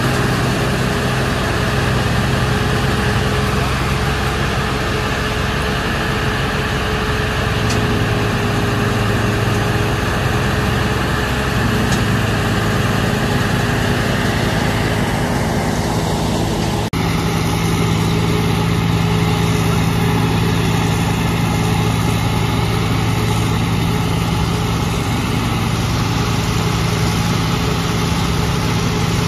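Mobile wood crusher running under load, a steady machine drone as it blows crushed wood out of its discharge chute. About seventeen seconds in the sound changes abruptly to a similar steady drone with a different tone.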